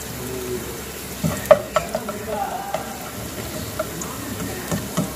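Minced garlic sizzling in a little oil in a nonstick pan while being browned, stirred with a spatula that knocks and scrapes against the pan several times about a second and a half in and again near the end.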